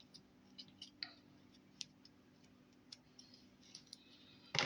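Faint, scattered clicks and light taps of plastic Play-Doh tubs and molds being handled over a low steady hum, with one brief louder rustle near the end.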